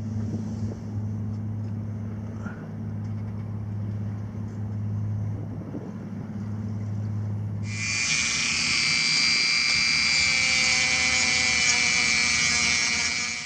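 A steady low hum for the first eight seconds or so, then a handheld electric rotary tool cutting into wood: a loud, steady high-pitched whine that starts suddenly and cuts off abruptly.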